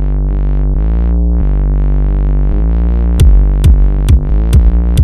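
Electronic outro music: synthesizer chords with sliding pitches, joined about three seconds in by a drum-machine beat of about two hits a second.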